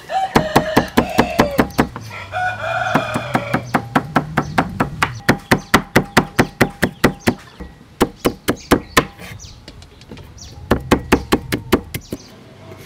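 Knife chopping red chillies on a wooden chopping block: rapid, even knocks at about five a second. A rooster crows twice in the first five seconds.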